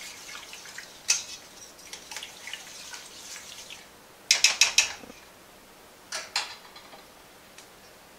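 A metal whisk scraping and clinking around a stainless steel stock pot while a milky soup base is stirred. About four and a half seconds in there is a quick run of about five sharp metal taps, then two more taps a couple of seconds later.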